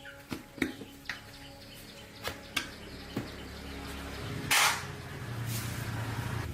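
Workshop sounds from work on a motorcycle tyre: a handful of sharp knocks and clicks, then a loud short hiss about four and a half seconds in and a weaker one a second later.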